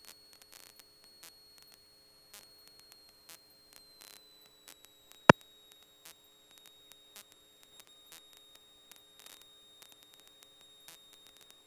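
Electrical hum and crackling static on an aircraft radio and intercom audio line, with a faint steady high whine and scattered clicks. One sharp click comes about five seconds in.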